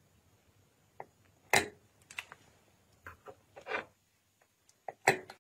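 Irregular small clicks and knocks of metal gun parts against a glass jar, the loudest about a second and a half in and another just before the end.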